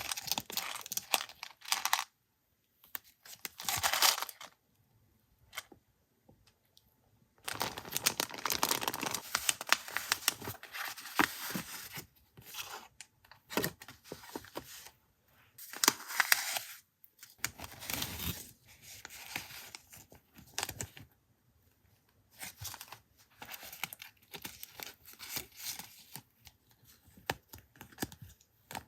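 Paper packaging being unwrapped by hand: tearing and crinkling in irregular bursts of a second to a few seconds, with short pauses between.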